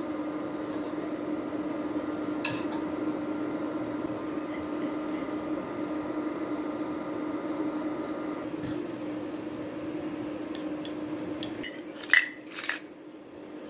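A pot of hotpot broth boiling on a glass-top cooktop, a steady hum with a constant low tone over an even bubbling haze. Near the end come two sharp clinks of tableware, about half a second apart.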